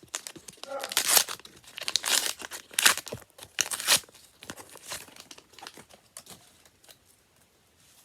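A trading-card pack wrapper being torn open and crinkled, in several loud rips and crackles over the first four seconds. After that come quieter rustles and ticks as the cards are handled.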